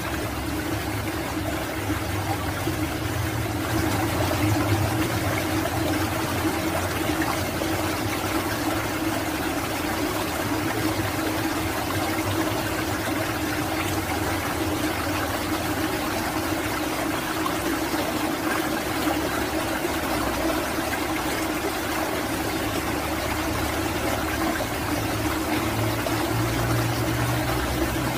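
Steady rush of flowing stream water, with a constant low hum beneath it.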